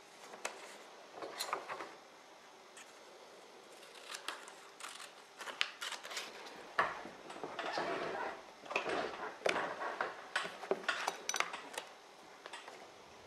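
Hands folding and handling small pieces of printed book paper: irregular rustling and crinkling with small sharp clicks and taps, busiest in the second half.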